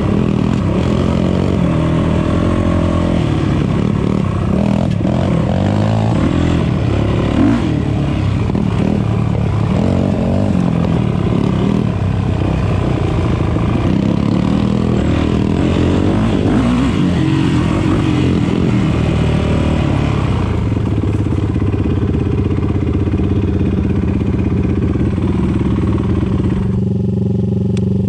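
Dirt bike engine running under the rider, revs rising and falling on a rough trail, then settling to a steady low idle in the last seconds.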